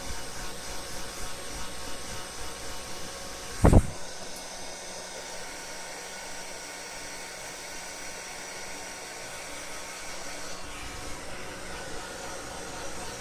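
Hair dryer running steadily, a continuous rush of blown air with a faint motor whine. A few seconds in, one short, loud, low thump cuts through it.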